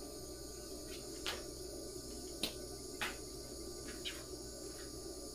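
Faint, steady chorus of crickets and other insects before dawn, with a few short clicks or knocks scattered through it.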